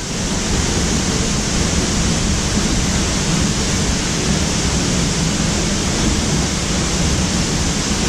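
Waterfall pouring steadily: a loud, even rush of falling water that does not change.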